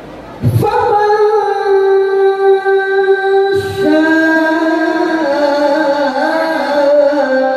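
A male qari's voice in melodic Qur'an recitation, amplified through a microphone: one long held note, a breath about three and a half seconds in, then a lower phrase with wavering ornaments.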